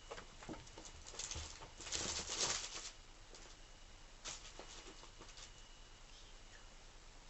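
A cat scrabbling and pawing at a carpet, with short bursts of rustling and scratching. The loudest cluster comes about two seconds in, and there is a shorter burst about four seconds in.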